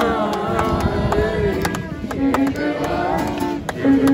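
Live violin playing a melody that slides and bends between notes over acoustic guitar, with sharp percussive hits at irregular intervals.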